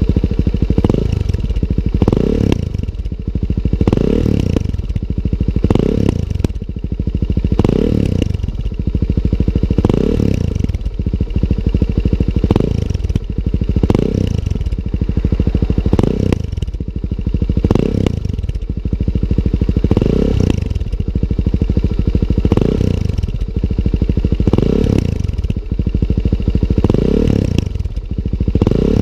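Suzuki DR-Z400S single-cylinder four-stroke engine, with a Higashi aftermarket exhaust, idling while the throttle is blipped again and again. Each rev rises sharply and falls straight back to idle, about once every two seconds.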